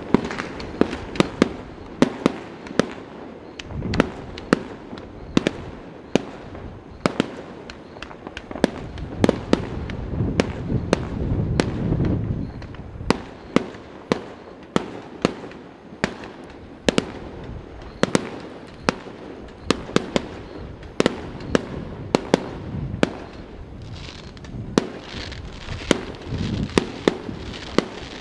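New Year fireworks going off in quick succession: sharp, irregular bangs and cracks, several a second, over a continuous crackling haze. Near the middle there is a swell of low rumbling.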